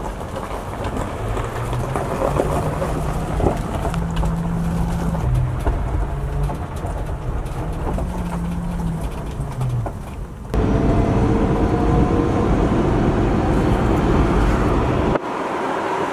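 Electric VW bus driving, its permanent magnet switched reluctance motor humming and the hum stepping up and down in pitch under a steady road noise. About ten seconds in the sound changes suddenly to a louder rush of road and wind noise with a faint whine, and it changes again shortly before the end.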